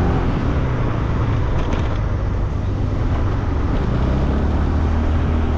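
Motor scooter engine running steadily while riding, with a steady rushing noise of road and wind.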